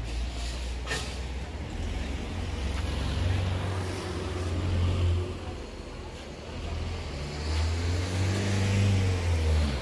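Wind buffeting the phone's microphone: a low, gusting rumble that swells and dips, over a steady hiss, with a sharp handling click about a second in.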